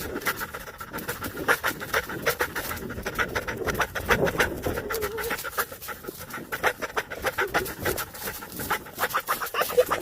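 A fox making rapid, clucking chatter calls, a quick run of short pulses.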